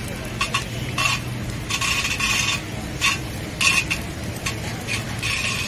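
Steel ladle scraping across a large flat iron griddle in repeated strokes, spreading egg over a paratha. The longest strokes come about two seconds in and near the end, over a low steady hum.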